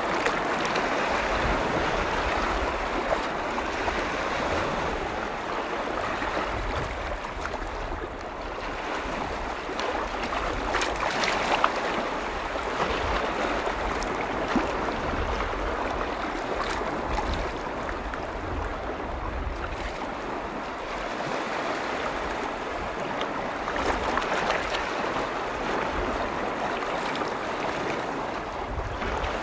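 Waves from a large freshwater lake washing in, a steady rush that slowly swells and eases, with a few small splashes and a low rumble of wind underneath.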